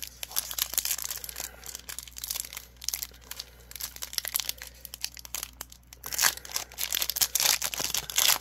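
Foil wrapper of a Pokémon card booster pack being torn open and crinkled in the hands, irregular crackling that grows louder about six seconds in.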